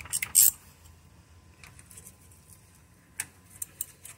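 Metal wrench clinking and tapping against the oil-cooler nuts on the engine: a quick cluster of sharp clinks about half a second in, then a few lighter clicks later, the clearest about three seconds in.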